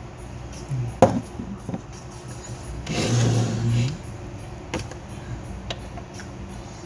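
Bench handling noises: a sharp knock about a second in and a few lighter clicks later, with a brief whirring burst of about a second in the middle.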